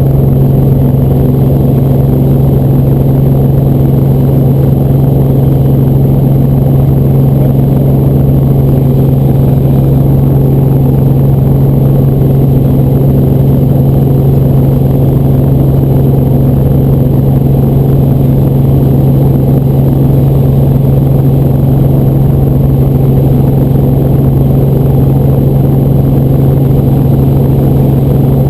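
Helicopter running, heard from inside the cabin: a loud, steady drone with a strong low hum that does not change.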